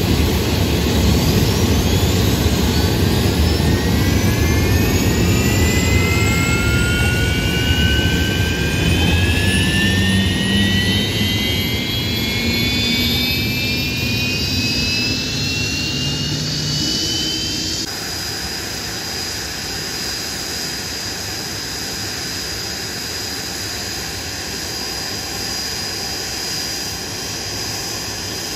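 Blackburn Buccaneer's Rolls-Royce Spey turbofan spooling up on start: a whine that climbs steadily in pitch over a heavy rumble. About two-thirds of the way through, the sound changes abruptly to a quieter, steady high-pitched jet whine.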